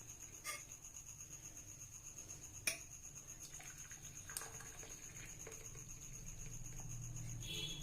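Faint clinks of a pan and a metal strainer against a cup while hot kaadha is strained into it: three sharp taps about half a second, two and a half seconds and four and a half seconds in, the middle one the loudest.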